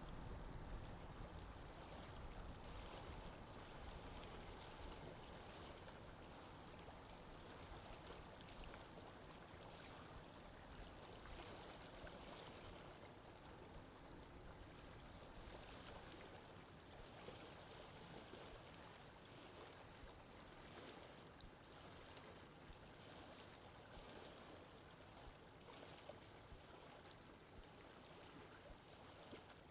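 Faint, steady sound of lake water moving, an even wash with no distinct events.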